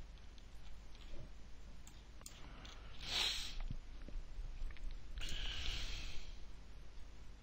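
A few faint computer-mouse clicks and two short breaths near the microphone, about three and five seconds in, over quiet room hiss.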